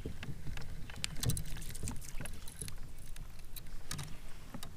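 Irregular light clicks and small knocks over a low rumble: fishing tackle and a kayak hull being handled while a fish is fought on a spinning rod.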